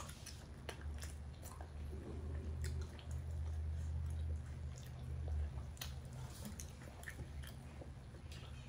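Close-up eating sounds of people chewing roast chicken: wet mouth clicks and smacks at irregular moments, over a low steady hum.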